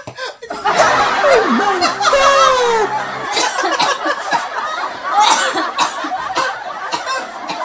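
A man and a woman laughing hard, with squealing high glides in the first few seconds.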